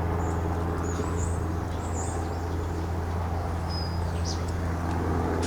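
A steady, unchanging low engine drone, with birds chirping several times high above it.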